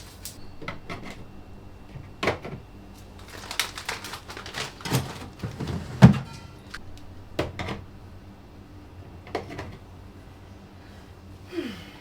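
Household handling noises in a small room: a string of knocks and clacks, with one loud thump about halfway through and a short squeak near the end.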